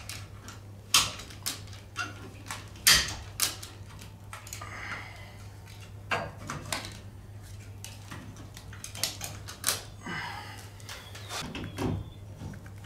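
Ratchet strap being cranked in short strokes: irregular metallic clicks and clunks as it draws a Ford 9-inch rear axle down onto the leaf-spring perches and their dowel pins. A steady low hum runs underneath.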